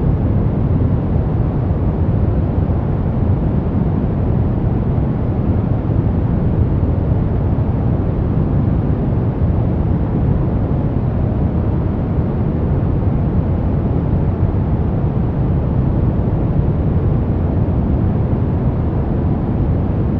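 Steady brown noise: a deep, even rumbling hiss, strongest in the low end and fading toward the highs, with no changes.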